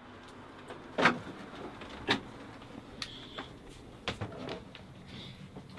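Footfalls and knocks on a sailing yacht's companionway stairs while going below deck, about one a second, the loudest about a second and two seconds in.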